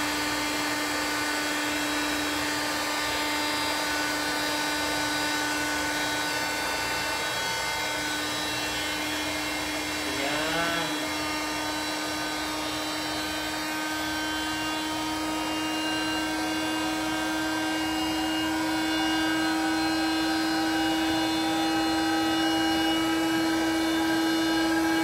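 Electric air pump running steadily as it inflates a double air bed: a continuous motor hum that grows a little louder in the second half as the bed fills.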